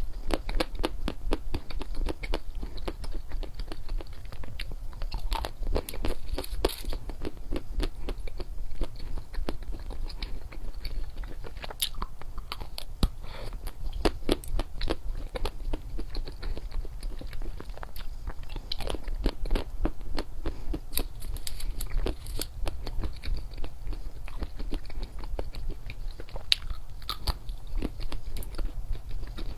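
Close-miked chewing and crunching of chocolates: a continuous, irregular run of crisp bites and mouth crackles, with a low steady hum underneath.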